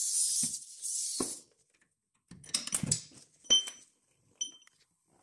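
Light metallic clinks and taps of tools and a socket working on the lower control arm nut, two of them ringing briefly like struck steel. A steady high hiss cuts off about a second and a half in.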